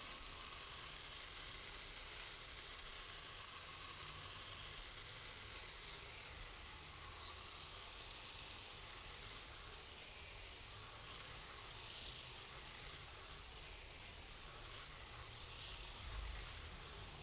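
A thin stream of rice grains pouring from a hanging metal cone pendulum onto a rice-covered floor, making a steady fine hiss.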